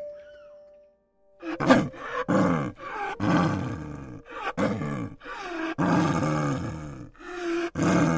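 Snow leopard calling: a rapid run of about a dozen short calls, each falling in pitch, about two a second, starting about a second and a half in.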